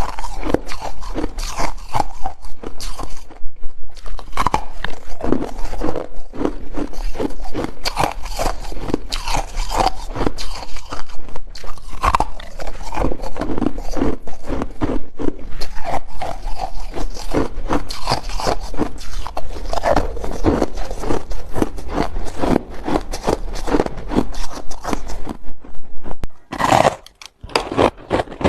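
Hard ice being bitten and chewed close to the microphone: a dense, continuous run of sharp crunches and cracks, with a short pause about three seconds in and another near the end.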